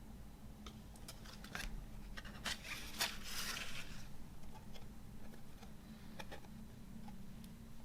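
Hands handling CD packaging: scattered light taps and clicks, with a brief rustle about three seconds in.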